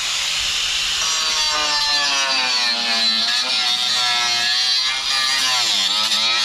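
Power saw cutting through pallet wood, running loud and steady, its motor pitch wavering and dipping as the blade loads up in the timber.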